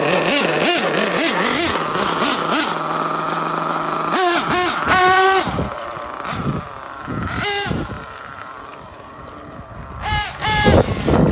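Losi 8ight-T nitro truggy's small two-stroke glow engine revving up and down in repeated bursts of throttle as it is driven. It falls back to a quieter, lower sound about eight seconds in, then revs hard again near the end.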